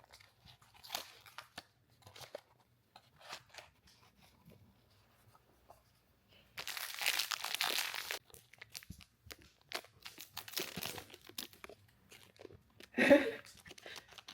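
Blind-box packaging being handled and opened: scattered small rustles and clicks, then a tear of the packaging lasting about a second and a half about halfway through, followed by more crinkling.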